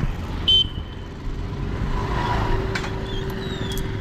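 Road traffic running steadily, with a short, high-pitched beep about half a second in.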